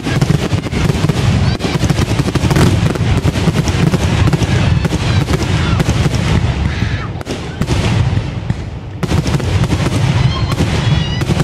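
Fireworks finale: a dense, rapid barrage of bangs and crackles that thins out briefly partway through. A few high whistles sound near the end.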